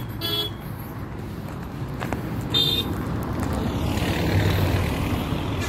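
Vehicle engine and road noise heard from a moving vehicle: a steady low rumble that grows louder about four seconds in. Two short tooting tones sound near the start and about two and a half seconds in.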